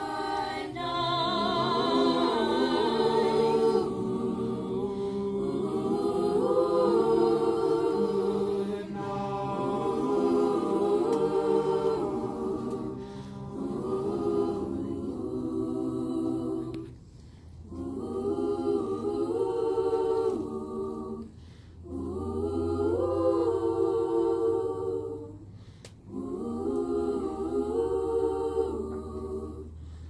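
Mixed-voice school choir singing a slow, gentle song in several parts, in phrases with short breaks between them.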